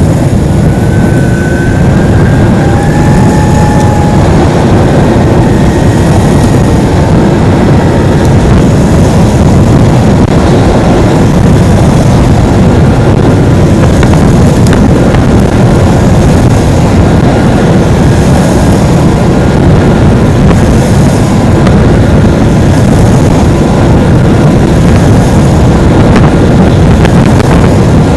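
Heavy wind noise buffeting the microphone, a dense, steady, very loud rumble, with a few faint thin whistling tones in the first few seconds.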